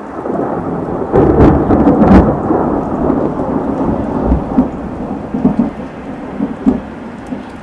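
Loud thunder from a close lightning strike, about two seconds after the flash, rumbling loudest about one to two seconds in and then slowly fading, with rain falling steadily underneath.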